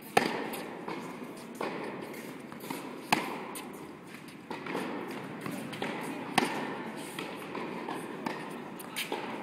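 Tennis balls being struck with racquets in a baseline rally on an indoor court: three sharp hits about three seconds apart, with fainter knocks between them from the far side of the court.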